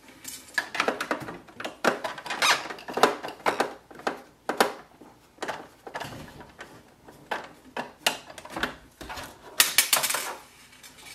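Screwdriver undoing small screws in the plastic front housing of an Epson ET-2720 printer: irregular clicks, scrapes and squeaks of the bit turning in the screw heads and against the plastic case.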